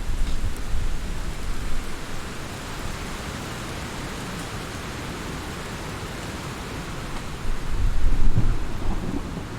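Thunderstorm: steady rain with thunder rumbling. A low roll of thunder dies away in the first couple of seconds, leaving the rain, then a louder roll swells about three quarters of the way through and fades again.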